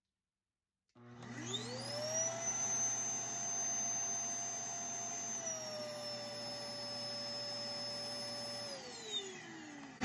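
A 2013 Twin Bird DD Cyclone bagless canister vacuum is switched on from its handle controls about a second in, and the motor winds up to a steady high whine. About five seconds in it is switched from high to low speed and the pitch drops slightly. It is switched off near the end and the motor winds down.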